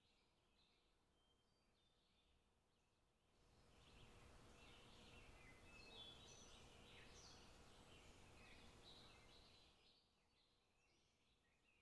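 Near silence with faint, short high bird chirps and a soft hiss that swells about three seconds in and dies away near ten seconds.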